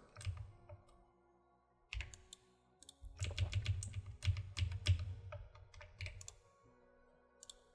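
Computer keyboard being typed on: a couple of isolated key presses, then a quick run of keystrokes for about three seconds.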